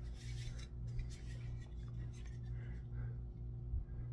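Hands rubbing and handling a wooden handsaw handle freshly coated with boiled linseed oil: faint, soft scuffing strokes, over a steady low hum.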